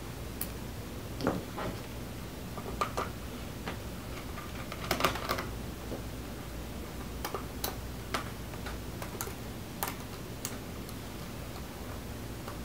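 Irregular light clicks and taps, with a small cluster about five seconds in, as a small Phillips screwdriver works the screws in a Chromebook's plastic bottom case and tweezers lift the screws and set them down on a parts mat.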